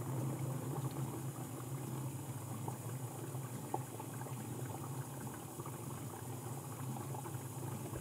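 Whirlpool dishwasher filling with water: water splashing and trickling inside the tub over a steady low hum.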